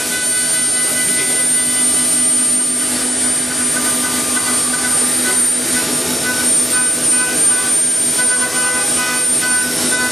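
A CNC woodworking machine running steadily: a continuous mechanical hum with a high spindle-like whine, and a mid-pitched tone that turns to short pulses in the second half.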